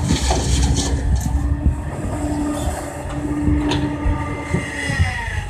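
Kobelco hydraulic excavator working: its diesel engine runs steadily under load with a constant whine, occasional sharp knocks, and pitch glides near the end as the hydraulics shift.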